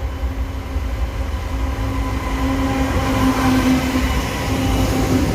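CSX train's diesel locomotive running with a low rumble and a steady engine drone, growing louder as it comes closer.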